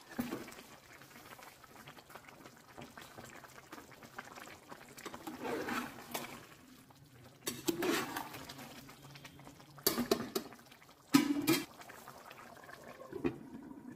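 Rice and meat bubbling in boiling stock in a metal pot while a metal ladle stirs it. A few sharp clinks and scrapes of the ladle against the pot come in the second half.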